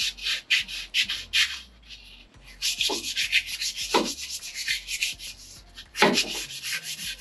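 Fine 320-grit sandpaper, wetted with WD-40, rubbed back and forth by hand over a lightly rusted steel driveshaft yoke to polish off the rust. The strokes are quick and even, about four to five a second, with a short pause about two seconds in and a few brief falling squeaks.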